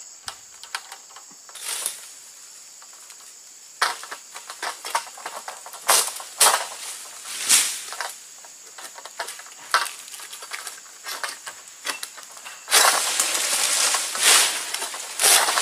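Egrek, a long-pole palm-harvesting sickle, cutting into oil palm frond stalks: a run of sharp hacking and rasping strokes, then about three seconds of dense rustling and crackling near the end as the cut frond tears loose through the foliage. An insect buzzes steadily in the background until then.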